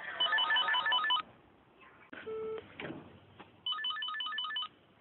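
Telephone ringing before the call is answered: an electronic ringer's fast warbling trill, one burst of about a second near the start and another about a second long near the end, with a brief low beep between them.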